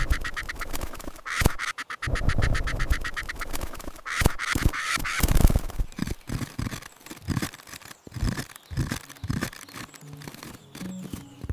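Woodpecker calling in fast, harsh chattering runs: one ends about a second and a half in and a second comes at about four seconds. After them come scattered dull thuds.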